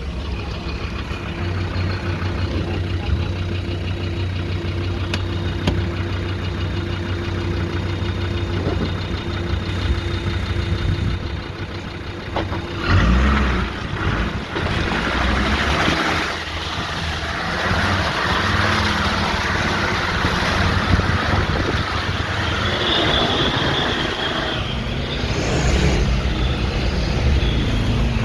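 Land Rover Discovery 2 Td5 five-cylinder turbodiesel engine running steadily at idle, then revved from about halfway through, with a high turbo whistle rising in over the engine noise near the end.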